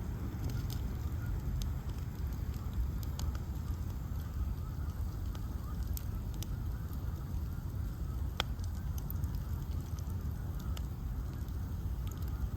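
Bonfire of ash logs burning, with a steady low rumble and scattered sharp crackles and pops. The loudest pop comes about eight seconds in.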